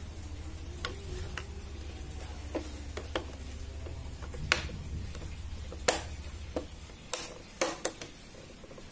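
Plastic clicks and knocks as a Yamaha Mio scooter's tail lamp assembly is pressed and fitted back into the rear body panels. There are about ten separate clicks, the loudest about four and a half and six seconds in, and a quick cluster near the end.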